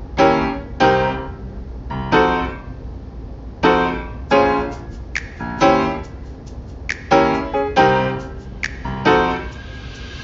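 Background piano music: notes and chords struck every half second to a second, each ringing and fading away.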